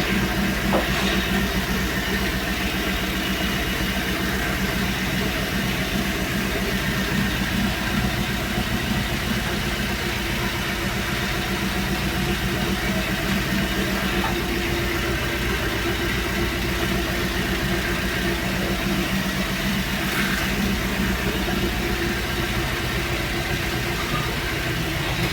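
Fiat Uno car engine running steadily at idle.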